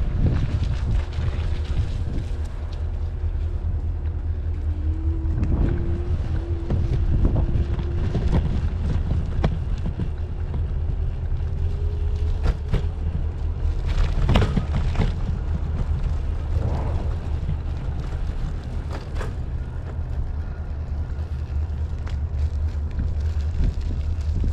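Riding an electric kick scooter: steady wind rumble on the microphone, with scattered knocks and rattles as the scooter rolls over rough ground. In the middle, a faint motor whine rises slowly in pitch for several seconds.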